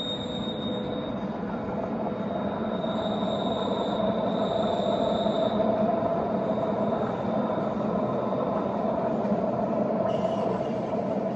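Rhaetian Railway narrow-gauge passenger coaches rolling across a stone viaduct: a dense, steady running noise that builds over the first few seconds, with a thin, high wheel squeal that comes and goes.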